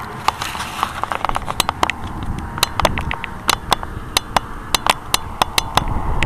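Distant paramotor engine drone, faint under low wind rumble on the microphone, with a run of sharp crackling clicks that are the loudest sounds.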